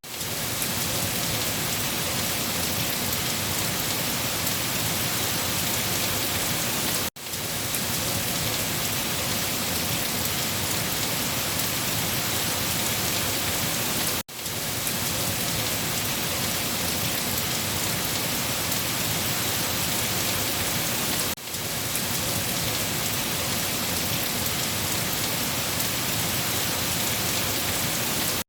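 Steady rain falling, an even dense hiss of drops on a surface. The sound dips out for a split second about every seven seconds.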